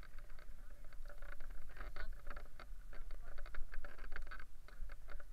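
Wind rumbling on a helmet-mounted camera's microphone, with irregular rustling crackles from the paraglider wing and the brush during landing.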